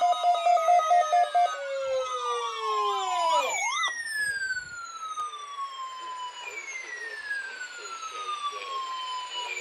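Electronic alert tones from a weather radio: a rapid pulsing beep that breaks off about a second and a half in and slides down in pitch, followed by long falling whistling tones about every three seconds.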